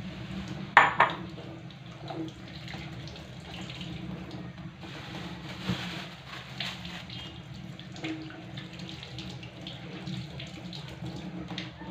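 Water running from a tap into a sink while something is rinsed under it. A few knocks and clatters come through, the sharpest about a second in.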